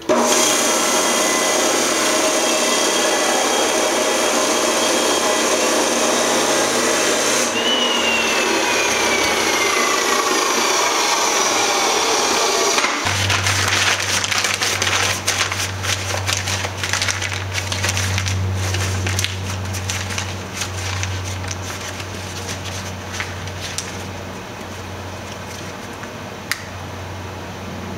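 Chop saw running hard for several seconds, then its motor spinning down with a falling whine once the trigger is released. After that comes a steady low hum with scattered crackling and rustling.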